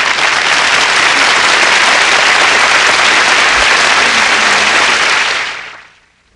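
Audience applauding, then fading out about a second before the end.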